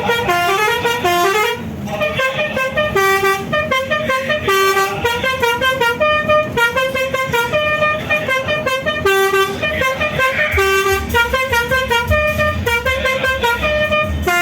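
Telolet multi-tone musical horn on a Toyota Innova playing a fast tune of short, stepping horn notes, some gliding upward near the start, with only a brief break about two seconds in.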